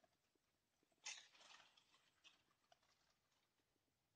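Near silence, with a faint short rustle about a second in and a few faint ticks after it, from an angler handling a fishing rod and spinning reel.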